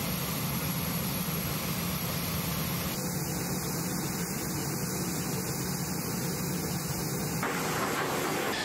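Steady jet engine noise on a flight line with a constant low hum, changing abruptly about three seconds in and again near the end as the clips are cut together.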